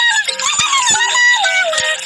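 Children's cartoon background music: a synthesized, voice-like melody moving in short held notes that step and slide up and down, over light percussion.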